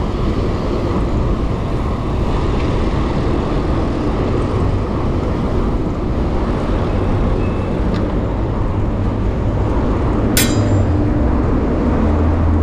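Steady traffic and road noise, heaviest in the low end, heard from a bicycle riding along a city road. A single sharp click comes about ten seconds in, and a steady low engine hum, likely a vehicle passing, rises near the end.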